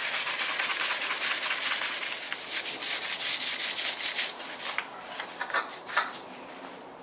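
Hand sanding with a sheet of wet and dry abrasive paper on a plastic dinghy hull: quick back-and-forth rubbing strokes that thin out to a few separate strokes and stop about six seconds in. The paper is polishing up a dull, scraped-flat plastic weld repair to a smooth finish.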